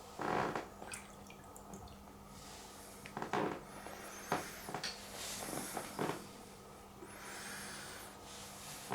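Water being poured into a tabletop fountain's basin in several short splashes and drips, over a faint steady low hum.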